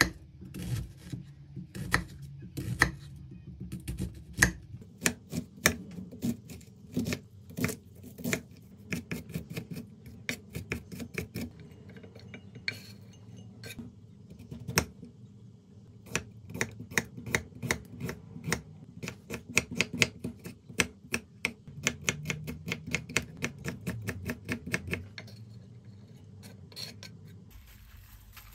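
Kitchen knife dicing an onion and then a carrot on a wooden cutting board: sharp knocks of the blade against the board, often in quick runs of several a second. The chopping stops shortly before the end.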